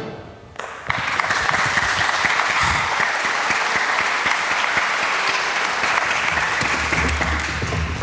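Audience applauding, beginning about a second in after a brief lull and going on steadily.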